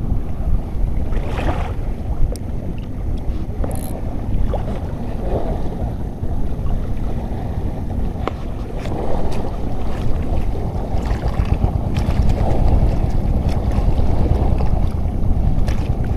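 Wind buffeting the microphone over choppy sea water, a loud, steady, fluctuating low rumble, with a few faint sharp ticks scattered through it.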